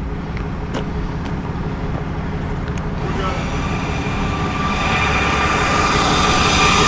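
Tow truck's winch pulling a stuck vehicle under load, with the truck's engine running. A steady mechanical drone grows louder, and a whine joins it from about three seconds in.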